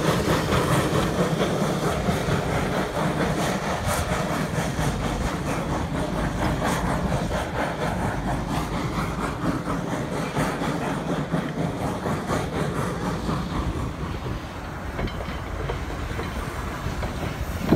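Denver & Rio Grande Western No. 346, a narrow-gauge C-19 class 2-8-0 steam locomotive, moving off: steam exhaust and the clatter of its wheels on the rails, slowly fading as it draws away.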